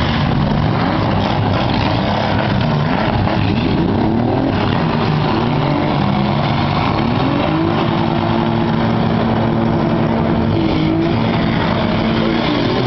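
Several demolition derby cars' six-cylinder engines running and revving at once, their pitches rising and falling and overlapping.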